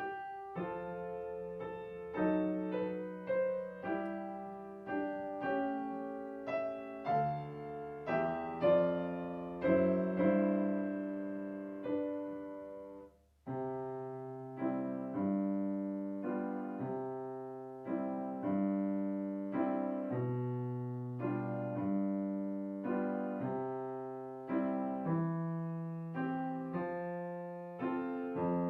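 Solo piano accompaniment for a children's solfège song, played without the voice part: a steady run of melody notes over bass notes, with a short break about halfway through before the next phrase begins.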